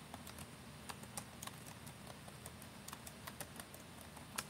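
Typing on a computer keyboard: faint, irregular key clicks, with one louder tap near the end.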